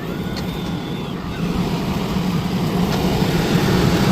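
Steady low mechanical hum of a commercial rooftop package AC unit running with its blower section open, growing slightly louder toward the end.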